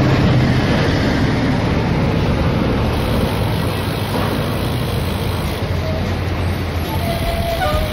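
Road traffic heard from a moving bicycle: a steady rushing noise, with a heavy truck's engine running low alongside, strongest in the first half.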